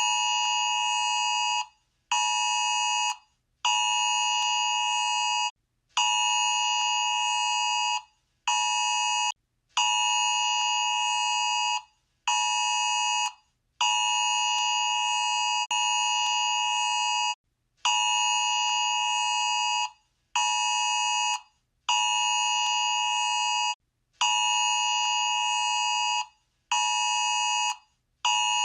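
Electronic warning-system alarm sounding one steady tone in repeated pulses of uneven length, about one to two and a half seconds each, with short gaps between them. Each pulse starts with a click.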